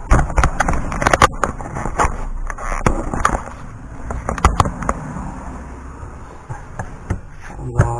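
Irregular knocks, clicks and clatter of hard parts being handled and pressed into place, densest in the first second and a half, then scattered single knocks.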